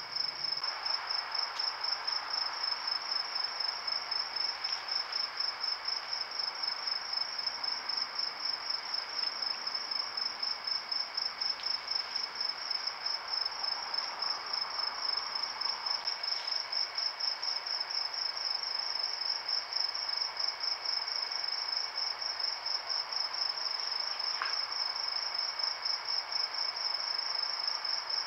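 A chorus of night insects trilling: a high-pitched, evenly pulsing chirr, with a fainter steady tone lower down and a few faint ticks.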